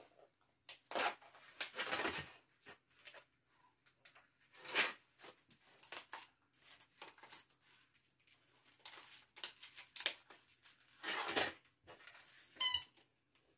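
A puppy chewing a plastic water bottle: irregular crackling crunches of the plastic, loudest about a second in and again near the end, with a brief squeak just before the end.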